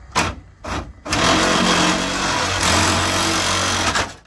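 Reciprocating saw (Sawzall) given two short trigger blips, then run steadily for about three seconds cutting through an already-cracked part behind a car's grille, stopping suddenly near the end.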